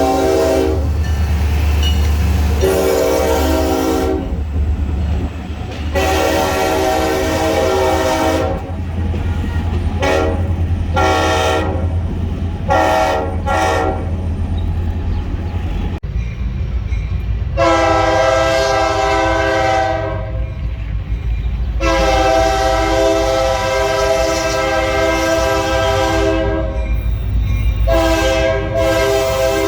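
Diesel locomotive air horn sounding a string of blasts: a few held ones early on, a quick run of short toots around the middle, then three long blasts. A steady low rumble of the train runs underneath.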